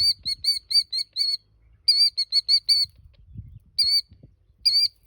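Killdeer giving shrill, rapid alarm calls: two fast runs of repeated notes, then two shorter calls. It is a parent bird agitated at an intruder near its nest of eggs.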